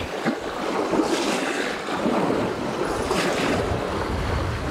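Small waves washing onto a rocky lakeshore in surges, with wind buffeting the microphone as a low rumble in the second half.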